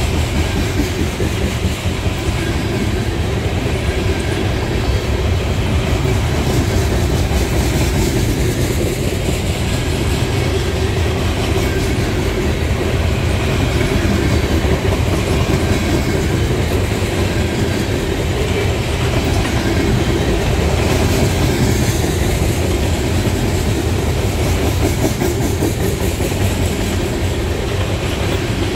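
Trash train's flat cars, loaded with open-top waste containers, rolling steadily past at trackside: a continuous rumble and rattle of steel wheels on the rails.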